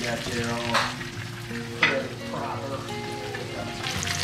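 Blackened grouper fillets sizzling in hot oil in a nonstick frying pan as a plastic spatula turns them, with two sharp clicks of the spatula against the pan about one and two seconds in.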